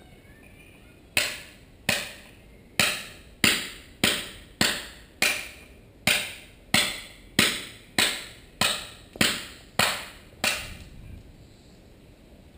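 A hammer striking stone about fifteen times in a steady rhythm, roughly a blow every 0.6 seconds, each sharp crack echoing briefly in a large hall; the blows stop near the end.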